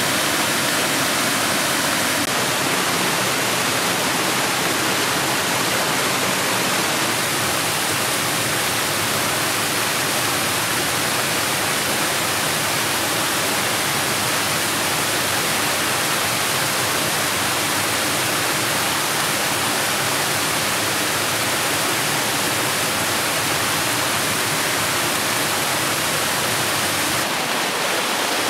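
Small waterfall cascading over rock ledges into a rocky stream: a steady rush of falling water.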